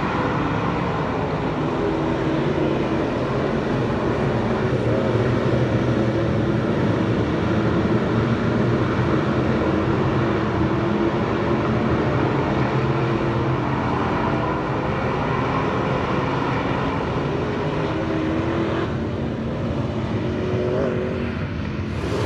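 Dirt track B-Mod race car's engine running hard at racing speed, its pitch rising and falling with the throttle. It eases off a little near the end.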